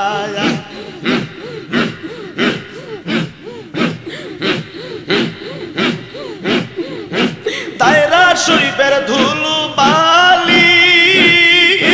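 Group zikir: men chanting in a steady rhythm, about two sharp chanted beats a second. About eight seconds in, a louder male voice starts singing a held, melodic devotional line over the chant.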